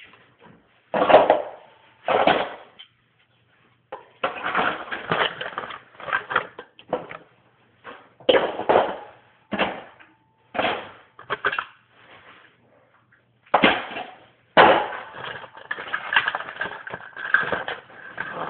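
Hard objects, likely utensils, being handled and knocked against a wire rack: a run of irregular knocks and clatters, some with a short ringing clink.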